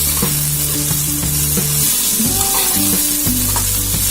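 Chopped okra frying in groundnut oil in a pan, sizzling steadily while it is stirred with a spoon to keep it from sticking to the bottom.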